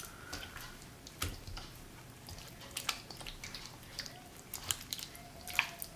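A hand kneading marinated lamb shanks in a thick yogurt marinade in a stainless steel bowl: faint wet squishing with a few light clicks scattered through.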